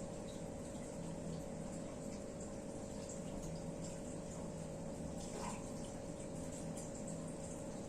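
Steady room noise: an even hiss with a constant low hum and a few faint ticks.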